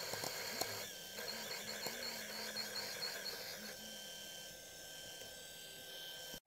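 A metal lathe running while a twist drill in the tailstock chuck bores into a spinning steel disc: a steady machine hum with a thin high whine that wavers in a regular rhythm for the first half. It cuts off abruptly near the end.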